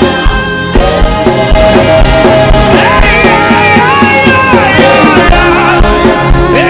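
Gospel worship music with a steady low beat under sustained chords, and a lead melody line that slides up and down in pitch about halfway through.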